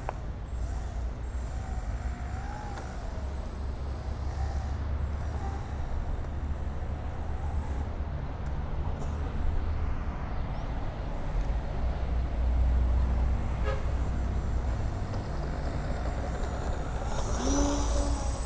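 Wind buffeting the microphone in a strong crosswind, with a faint wavering whine from a battery-powered RC airplane's electric motor and propeller.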